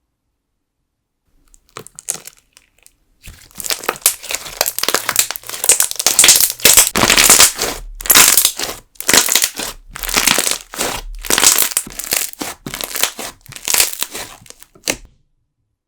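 Slime being squeezed and pressed by hand, crackling and popping in a long run of loud bursts with short pauses, starting about three seconds in after a brief quiet squish.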